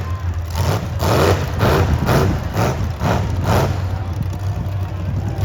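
Demolition derby car engines running with a steady low drone, pulsing about twice a second.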